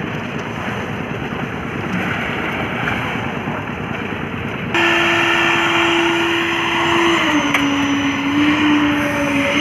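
Concrete mixer machine's engine running steadily on a roof-slab pour. The noise is rough at first; about halfway through a steady engine hum comes in abruptly and drops slightly in pitch a couple of seconds later.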